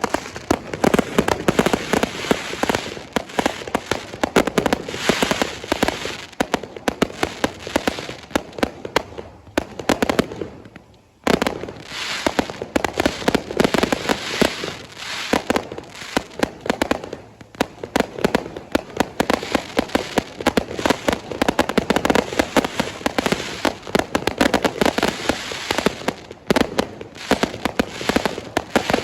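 Fireworks going off in a dense, continuous run of rapid bangs and crackles, briefly easing off about ten seconds in before picking up again.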